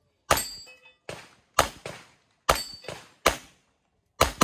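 A string of about seven gunshots fired at an uneven pace during a practical shooting stage, with half a second to a second between most shots and two close together near the end. A few of the shots are followed by a short high ring.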